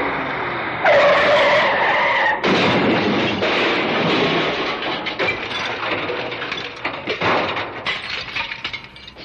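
Car crash sound effect: a vehicle running, then tyres screeching about a second in, then a loud crash about a second and a half later. Debris clatters and settles with scattered rattles over the next several seconds.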